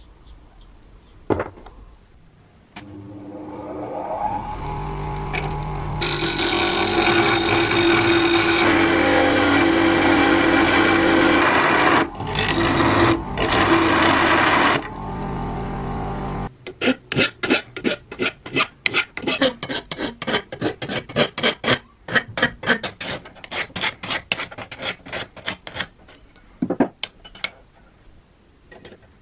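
A bench grinder spins up and grinds a small steel part held against its wheel, with a steady motor hum under the grinding noise; the part is lifted off the wheel briefly a few times. Then a quick run of hand-file strokes on steel, several strokes a second, followed by a few light clicks.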